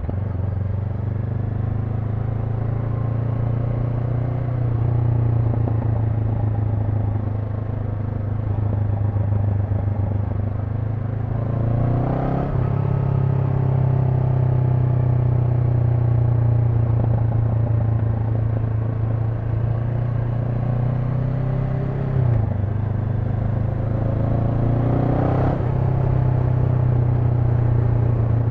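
Honda NX500's 471 cc parallel-twin engine running at a steady cruising speed under the rider, with road and wind noise. The engine note briefly drops and recovers about twelve seconds in and twice more in the last few seconds, like quick gear changes.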